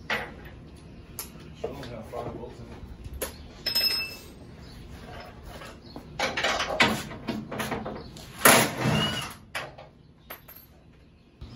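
Scattered knocks and clanks from hands-on work around a pickup's rear end, mixed with stretches of indistinct talk; the loudest burst comes about eight and a half seconds in.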